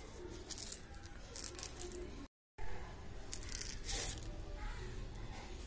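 A small plastic cone-shaped candy toy being worked open by hand, with short crackling plastic scrapes and rattles. Tiny candy balls tip out into a palm. The sound cuts out to total silence for a moment about two seconds in.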